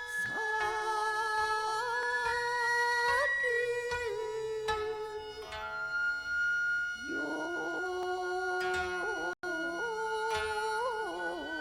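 Kibigaku music on traditional Japanese instruments: sustained melodic notes that slide and waver in pitch, over long held higher tones, with a thick cluster of held notes entering about two thirds of the way through.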